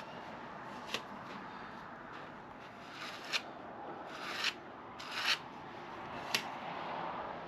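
Five short rubbing strokes of hand work on a hard surface, spaced irregularly over a steady hiss, a couple of them swelling up before they stop.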